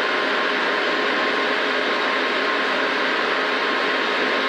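Rally car cabin at speed on a straight: a steady engine drone at constant revs mixed with loud wind and tyre noise, with no gear changes or lifts.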